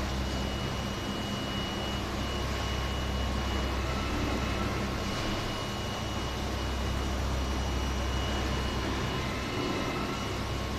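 Electric air blowers running steadily, a constant low drone with a thin steady whine, mixed with the rush of air bubbling up through the water of a sewage aeration tank in a membrane bioreactor plant.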